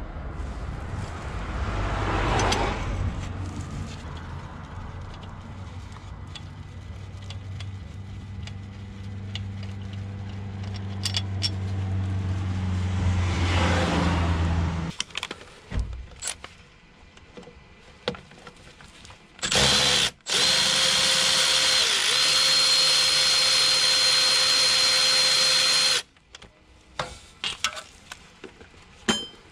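A power tool of the drill type whirring at a steady pitch with a high whine: a short burst, then about six seconds of continuous running that stops suddenly. Before it, a steady low hum with two swelling noises.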